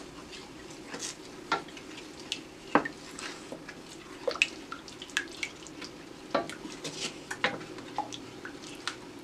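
Wooden spoon stirring a cream sauce in a stainless steel pan, with irregular clicks and scrapes as the spoon knocks against the pan. A steady low hum runs underneath.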